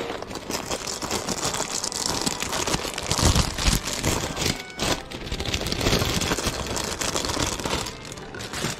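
Lure packaging rustling and crinkling as it is handled, with many small clicks and a few heavier knocks about three to five seconds in.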